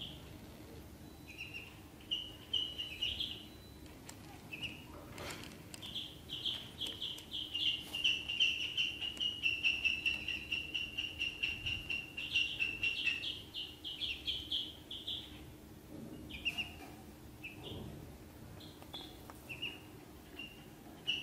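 Ducklings peeping: scattered short high peeps, then a long run of rapid peeps lasting about nine seconds, then scattered peeps again.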